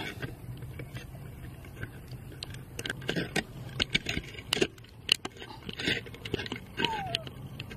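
A macaque biting and chewing a ripe mango: a run of wet smacking and clicking bites and slurps, over a low steady hum. About seven seconds in comes a short squeak that falls in pitch.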